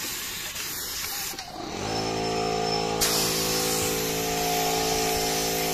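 Compressed-air spray gun hissing as it sprays thinned wood stain. The hiss drops out about a second and a half in and comes back near the midpoint. About two seconds in, an air compressor motor starts and runs with a steady hum underneath.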